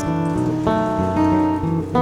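Background music: an acoustic guitar playing a melody, the notes changing about every half second.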